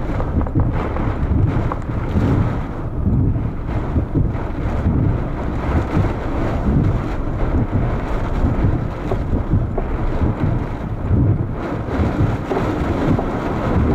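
Strong gusty storm wind buffeting the microphone: a low rumbling noise that swells and eases every second or so.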